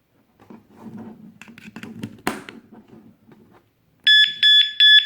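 Mito Digital ML 321 alarm padlock being handled, rattling with a sharp click about two seconds in. Then its alarm goes off near the end with three loud, high-pitched electronic beeps, about three a second.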